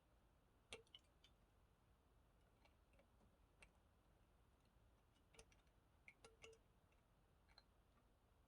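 Near silence broken by about a dozen faint, scattered clicks and ticks from bending and handling wire with small hand tools.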